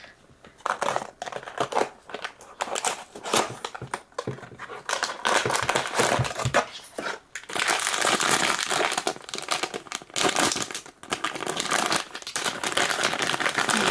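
Blind-box packaging being opened by hand: plastic wrapping crinkling and rustling against cardboard, in scattered handling noises at first, then near-continuous crinkling through the second half.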